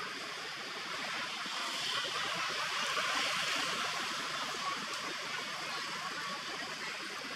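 Steady outdoor background hiss, swelling slightly a few seconds in, with no distinct calls or knocks.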